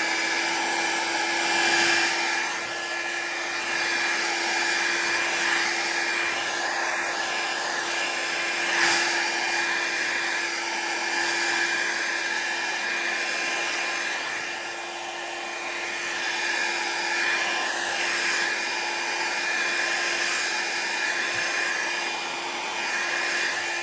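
Revlon 500-watt styling-brush hair dryer running steadily, a rush of air with a constant motor whine.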